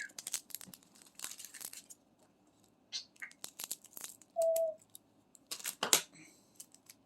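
Crinkling and clicking of small plastic packets of diamond-painting drills being handled, opened and emptied into a storage container. An African grey parrot gives a brief high whistle about three seconds in and a short, steady lower note about halfway through.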